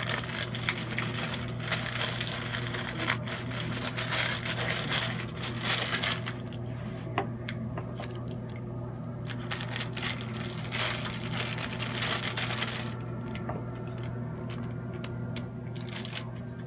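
Parchment paper crinkling and rustling as it is handled and folded, with a long stretch of crackle at the start and another about eleven seconds in, over a steady low hum.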